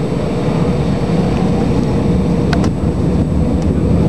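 Airbus A319 jet engines running at takeoff/climb power, heard inside the cabin as a loud, steady rumble with a steady hum over it.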